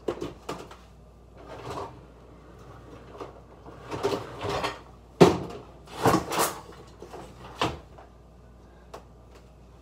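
Kitchen rummaging: a string of knocks, clunks and short rustles as things are moved about on the counter and in the cupboards, the loudest knock about five seconds in.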